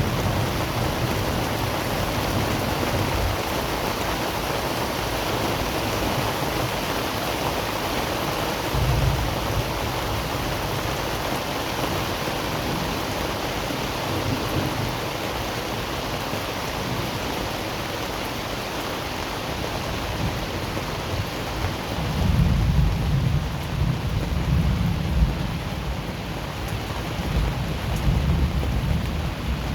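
Steady heavy rain during a thunderstorm, with low thunder rumbling now and then; the longest, strongest rumbles roll through in the last several seconds.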